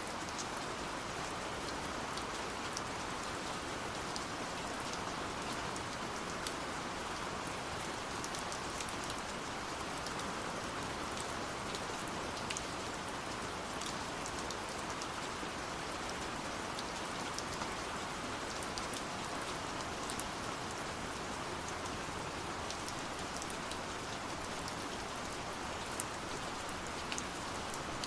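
Gentle rain falling steadily: an even hiss of rain with scattered sharp ticks of individual drops.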